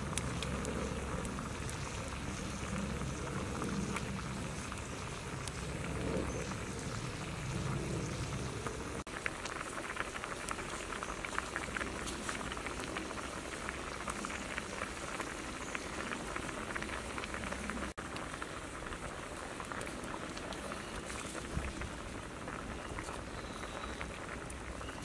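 Water boiling hard in a steel wok of duck eggs and snails over a wood fire: a dense, steady bubbling and crackling. A low rumble runs beneath it for the first nine seconds or so, then stops.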